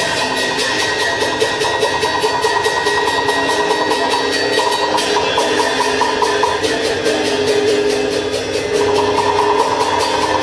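Teochew opera music accompanying the rod puppet show: a fast, even percussion beat under held melodic instrument lines.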